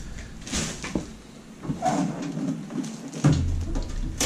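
Handling noise of a toaster oven and its packing being moved about: a few short knocks and scrapes, with a louder knock a little after three seconds in.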